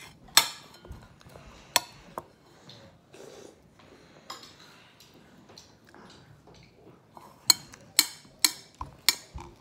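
A spoon clicking and scraping against a ceramic bowl while peanut butter is spread: scattered sharp taps, with four louder ones about half a second apart near the end.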